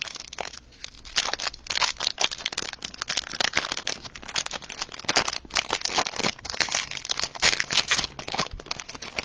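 Plastic-foil trading card pack wrapper crinkling and tearing as it is opened, with the card stack being handled: irregular crackles and rustles throughout.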